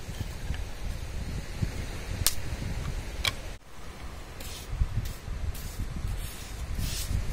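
Dry driftwood sticks knocking together twice as they are handled and sorted. Then a stick scrapes and digs into sand in short strokes, about twice a second, over a steady low rumble.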